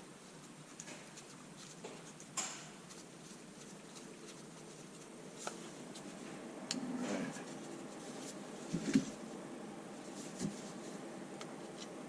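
Scattered light clicks and knocks of small metal parts being handled and fitted on a workbench, the loudest knock about nine seconds in.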